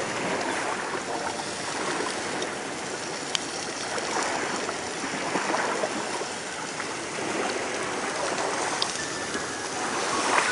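Small waves washing against the shore in a steady, slowly swelling rush of water, with one sharp click a few seconds in.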